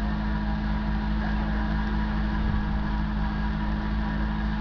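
Toyota pickup rock crawler's engine running steadily, its pitch holding constant with no revving.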